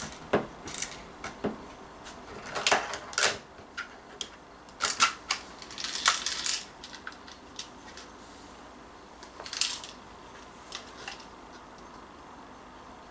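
Daisy 340 spring-powered plastic BB pistol being handled and re-cocked between shots: a string of sharp plastic clicks and rattles over the first seven seconds, then a few lighter clicks around ten seconds in.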